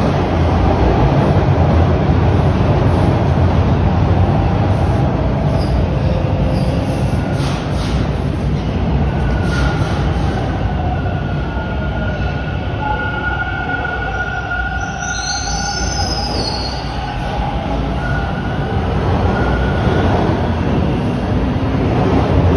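Toronto subway Bombardier T1 train in the station: a steady loud rumble, with a high, steady whine or squeal running through the middle.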